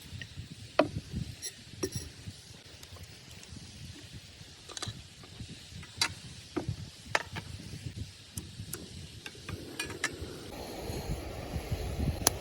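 Camp cooking gear being handled, with scattered sharp clicks and knocks over a low wind rumble. About ten seconds in, a steady rushing noise begins.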